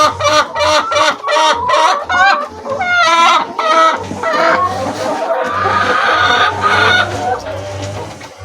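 Chickens clucking in quick repeated calls, about five a second, giving way about three seconds in to longer drawn-out calls that fade near the end, over a steady low hum.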